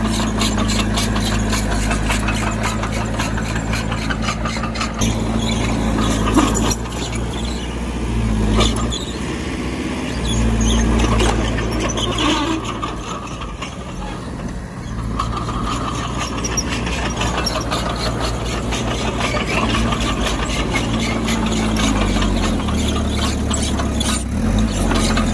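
Crawler bulldozer's diesel engine working under changing load, with rapid metallic clanking and high squealing from its tracks.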